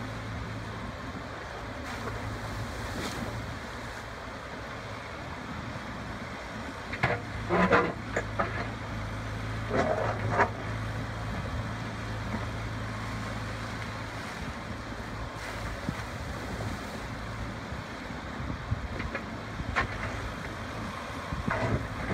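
Wacker Neuson ET90 mini excavator's diesel engine running steadily as it digs in a stony stream bed, with loud clatters and splashes of the bucket working rock and water about seven and ten seconds in and again near the end.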